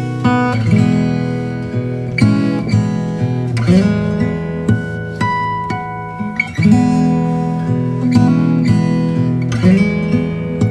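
Background music: acoustic guitar playing plucked notes and strummed chords.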